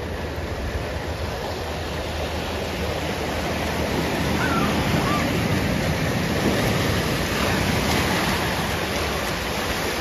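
Ocean surf breaking and washing over shoreline rocks as a steady rush that swells louder midway.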